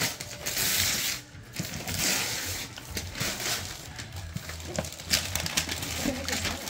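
Gift-wrap paper rustling and crinkling in uneven spells as it is handled, with a few small clicks.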